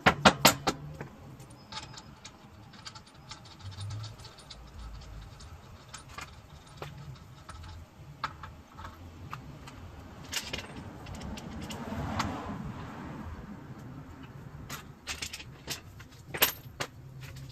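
A few quick blows from a dead blow hammer knocking a rear suspension shaft back into place, about four in under a second, followed by scattered metallic clinks and clatter of tools and parts, with another sharp knock near the end.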